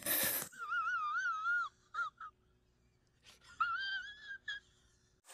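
A short rush of noise, then a high, wavering whimper from an inserted meme clip, heard twice with a pause between, the second time shorter.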